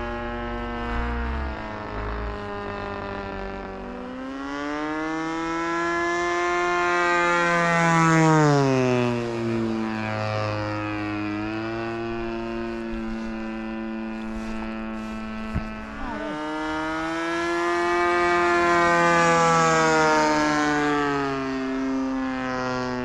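DLE 20 RA 20cc single-cylinder two-stroke gasoline engine of a model Zero flying two passes, its note rising in pitch and loudness as it comes in and dropping away as it goes by, loudest about eight seconds in and again near the end. The engine is still breaking in, on its 17th flight.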